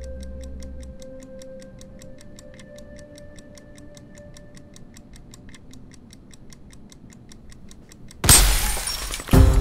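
Wall clock ticking quickly and evenly, about four ticks a second, over a soft sustained music drone that fades away. Near the end a sudden loud crash breaks in, followed by a second one a second later.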